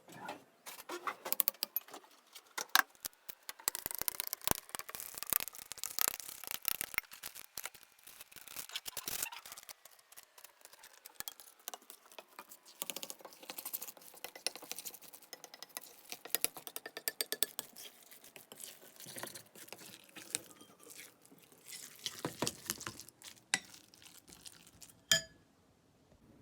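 Small objects being handled: a dense run of clicks, clinks and rustling, ending in one sharp ringing clink near the end.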